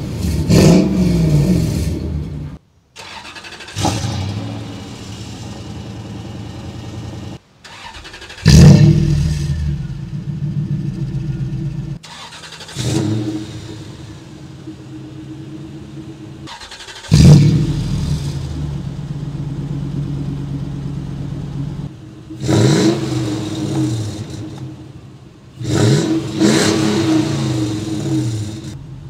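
Toyota Tundra's 4.7-litre V8 heard at the tailpipe in a string of short clips. First its revs fall back on the new MBRP 3-inch resonator-back exhaust. Then the stock exhaust takes over: the engine idles, starts with a loud flare of revs that settles to idle, and is revved in quick blips near the end.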